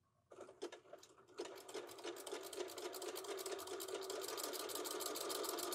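Electric domestic sewing machine zigzag-stitching the raw edge of a fabric panel to stop it fraying. It starts with a few slow needle strokes, then picks up speed into a fast, even rhythm of stitches over the motor's steady hum, growing louder as it runs.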